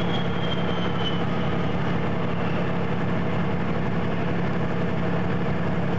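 Steady low engine drone at an even level, with a faint high whine that slides down in pitch during the first second.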